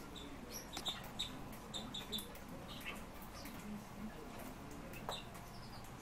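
Pet songbirds chirping: short, high chirps scattered through, with a few downward-sliding notes.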